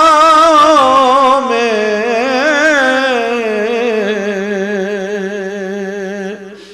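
A man singing a naat solo into a microphone, drawing out one long wavering note that slides down in pitch and then holds, fading out near the end.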